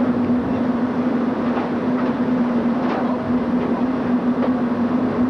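Steady wind and ship-motion rush on a camcorder microphone at sea, over a steady low hum, with a few faint clicks.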